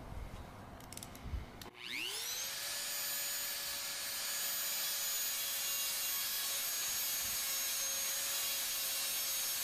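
Dremel rotary tool with a sanding drum spinning up about two seconds in and then running at a steady high-pitched whine while it sands the edge of a steel lawnmower blade, cleaning off the burnt, discoloured edge left by grinding. A few light knocks come before it starts.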